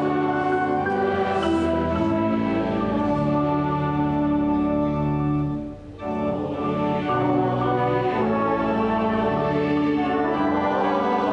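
A hymn played on marimba together with organ and horn, in held chords. The music breaks briefly just before six seconds in, between phrases, then goes on.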